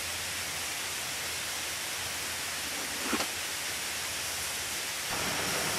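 Steady rushing of a waterfall, with a brief short sound about three seconds in.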